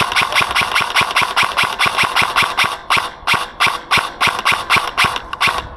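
Airsoft electric gun, a Double Eagle M917G AEG submachine gun, firing a rapid string of shots, about six a second, with a couple of brief breaks near the middle; the shots stop just before the end.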